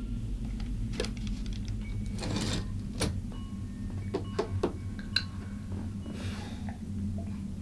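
Scattered, irregular mechanical clicks and knocks with a couple of brief rustles, over a steady low hum.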